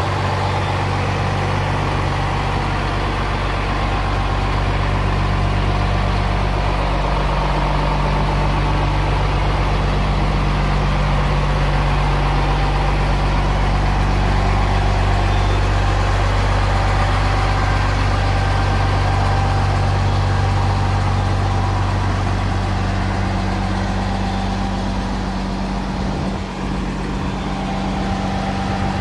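Renault R340 Major tow truck's diesel engine idling steadily.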